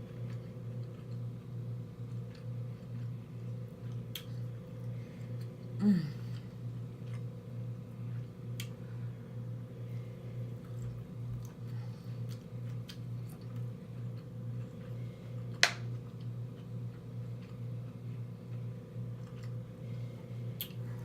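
A person eating seafood without speaking: a few sharp clicks spread over the stretch, the loudest about three-quarters through, and a short low mouth or throat sound falling in pitch about six seconds in. A steady low electrical hum runs underneath.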